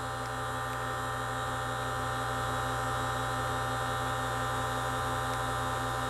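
Steady electrical hum, one unchanging tone with its overtones and no breaks, heard during a smoke test for vacuum leaks while the smoke machine runs.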